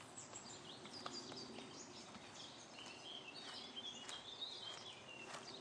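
Songbirds chirping and trilling, busiest in the second half, over steady outdoor background noise. A few faint, irregular thuds of a horse's hooves cantering on sand.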